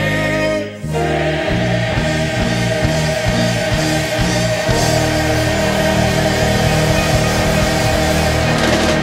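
Background music: a gospel-style sung track with choir stops abruptly under a second in and another music track with a steady bass line takes over.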